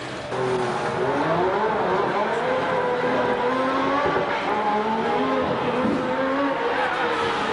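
Several Formula One engines running at once, their pitches rising and falling as they rev, coming in suddenly just after the start.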